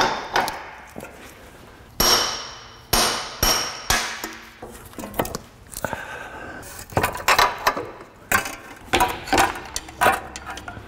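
Sharp metal knocks and clanks of a hand tool on a front drive axle being worked free: a hard strike at the start, three more about 2 to 3.5 seconds in with a short ringing tail, then a run of lighter knocks and clinks in the second half.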